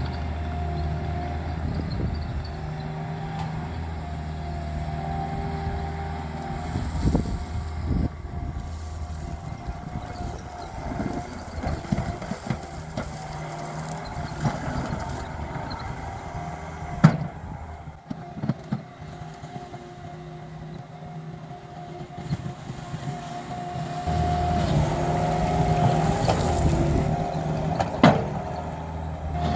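Bobcat compact track loader's diesel engine running steadily as it works crushed stone with its bucket, with sharp clanks and scrapes of the bucket on the gravel. The loudest clank comes about two-thirds through and another near the end. The engine drops off past the middle and picks up again toward the end.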